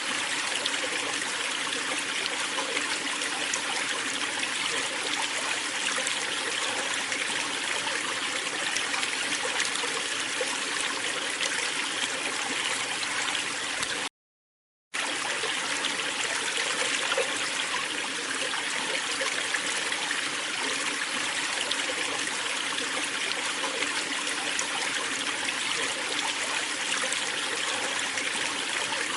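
Waterfall water rushing and splashing steadily. The sound cuts out completely for under a second about halfway through, then resumes unchanged.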